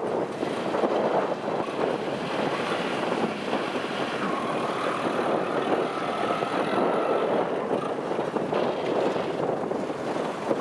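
Kubota DC-70 combine harvester running steadily at work cutting rice, a dense, even machine noise. A faint higher whine comes in about four seconds in and fades a few seconds later.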